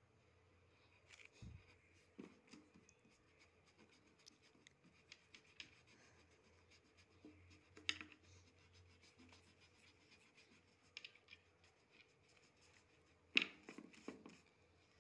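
Faint scratching and rubbing of pencil and eraser on a sheet of drawing paper: scattered small ticks and scrapes, one louder stroke about eight seconds in and a short run of louder strokes near the end.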